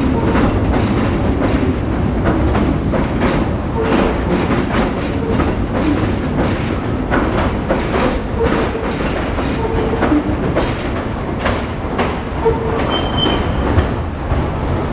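R62A subway train running over an elevated steel structure: a steady rumble with irregular clacks of the wheels over rail joints, and a few short wheel squeals.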